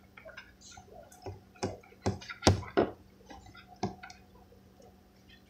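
A spoon stirring thick, sticky homemade slime in a container: irregular clicks and knocks, with a few louder knocks between about one and a half and four seconds in.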